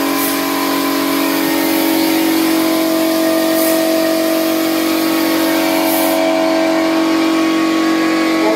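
An air compressor runs with a steady hum while a compressed-air spray gun hisses, spraying wood polish. The highest part of the hiss drops away about six seconds in, and the compressor hum carries on.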